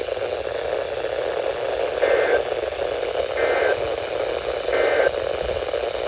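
Weather radio speaker playing three short two-tone digital data bursts, spaced a little over a second apart, over steady static hiss: the EAS/SAME data bursts of NOAA Weather Radio that mark an alert message.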